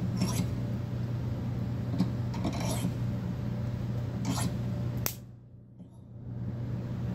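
Orange plastic pill bottle crackling and creaking as a bench vise crushes it: a few separate sharp cracks over a steady low hum. A sharp click about five seconds in, then the sound drops almost away for about a second.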